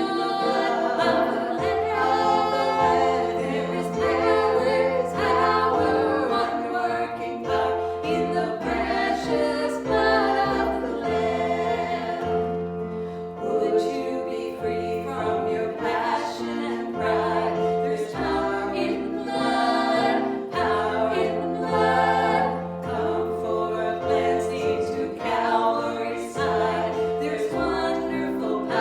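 Worship song in a church service: voices singing together over instrumental accompaniment with a steady bass line that moves through the chords.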